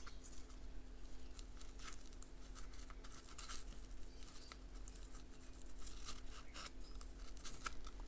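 Faint rustling, scraping and light clicks of a multi-tool belt pouch being handled as its strap is tucked in, over a steady low hum.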